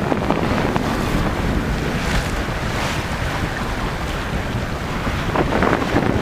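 Wind buffeting the microphone over the steady rush of sea water along a sailing yacht's hull.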